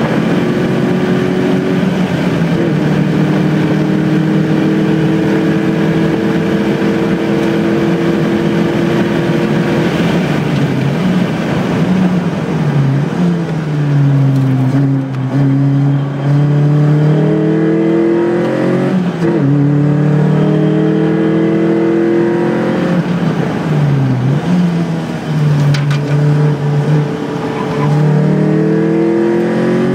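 Onboard sound of a vehicle engine under hard driving: a steady high-revving note held for about ten seconds, then falling as the vehicle slows, followed by repeated climbs in revs and sudden drops as it goes up and down through the gears.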